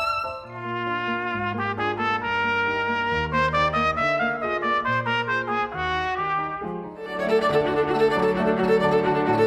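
A trumpet plays a melody over grand piano accompaniment. About seven seconds in, it cuts to a violin playing with piano.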